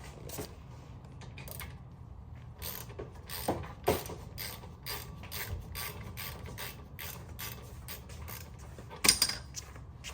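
Hand ratchet wrench clicking about three times a second as it is swung back and forth, followed by a single sharper metallic clank near the end.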